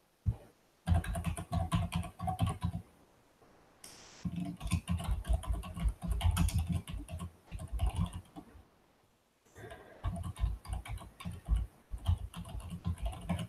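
Typing on a computer keyboard: quick runs of key clicks in three stretches, with brief pauses between them.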